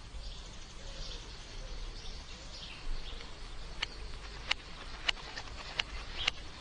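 Faint birdsong, then from about halfway through, slow, irregular clicks of typewriter keys.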